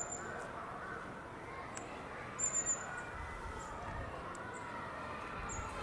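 Open-air ambience: a faint murmur of distant voices, with two short, high bird chirps about two and a half seconds apart.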